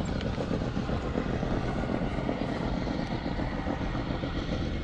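Steady low rumble under an even hiss, with no distinct events.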